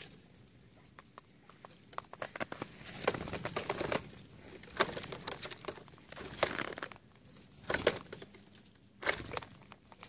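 Small tits fluttering their wings as they come and go at a plastic-bottle bird feeder, with scattered sharp taps and rustles and a few faint high peeps.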